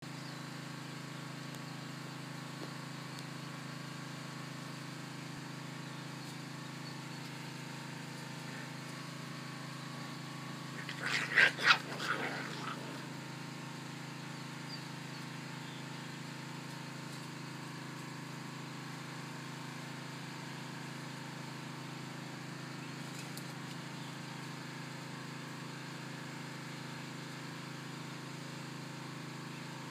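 Puppies tussling over a squirrel lure, giving a quick run of three or four short, high barks about eleven seconds in, over a steady low hum.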